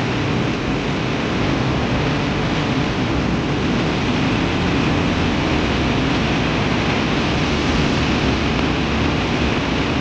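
Loud, steady rush of swollen floodwater.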